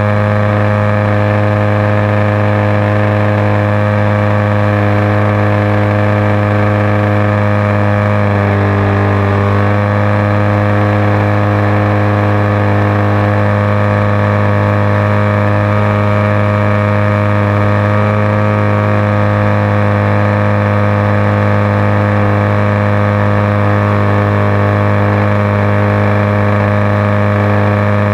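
Onboard sound of a model biplane's engine running steadily at high power while towing a glider, with a brief wobble in pitch about eight to nine seconds in.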